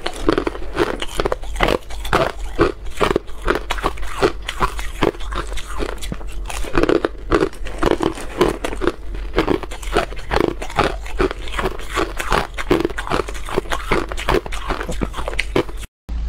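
Hard clear ice balls being bitten and chewed close to the microphone: a fast run of sharp, cracking crunches, about three or four a second, that breaks off for a moment near the end.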